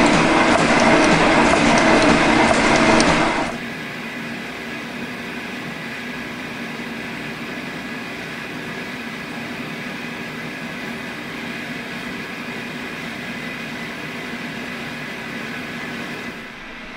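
Metal shaper running, its ram stroking the cutting tool across the end of an aluminum bar. About three and a half seconds in it stops abruptly and a quieter steady hum takes over.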